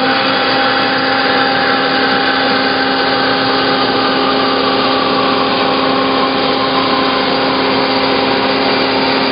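Hyd-Mech H-16 automatic horizontal bandsaw cutting through bar stock, its blade and drive making a steady, even machine hum with a few steady tones.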